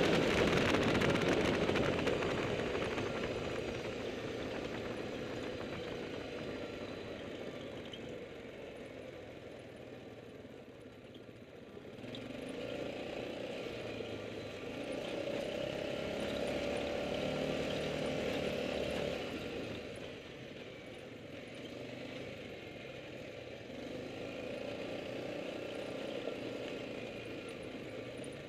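Yamaha ATV engine running under way, its note rising and falling with the throttle, loudest in the first couple of seconds.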